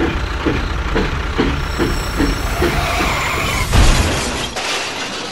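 Toy tractor's engine sound running with a low rumble and an even chugging beat a little over two times a second, then a loud crash a little under four seconds in as the tractor and toy train collide, after which the sound fades.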